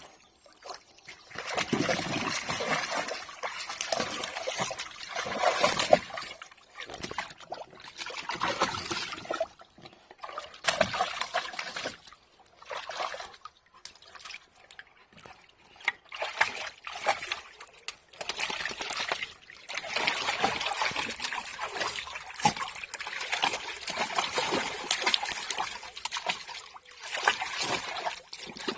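A Labrador splashing and sloshing water about in a paddling pool, in irregular bursts with lulls between them.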